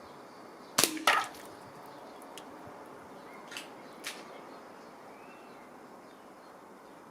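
A Weihrauch HW30 spring-piston air rifle fires with a sharp crack, and a moment later the pellet hits a can with a louder knock and a brief metallic ring. Two much fainter knocks follow a few seconds later.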